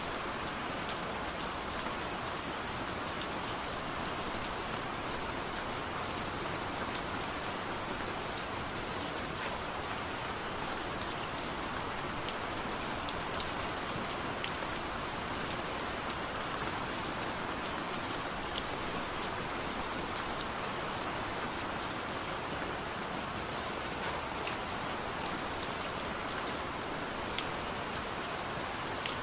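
Steady light rain falling, an even hiss with many small scattered drop ticks and no thunder.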